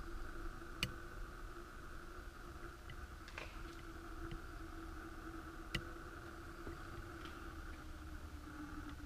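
Quiet steady background hum and hiss, with two short sharp clicks about one second and six seconds in.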